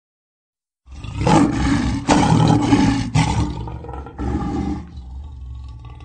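A lion roaring: a long, loud roar begins about a second in with a brief break near the middle, followed by a shorter roar about four seconds in, then a quieter tail.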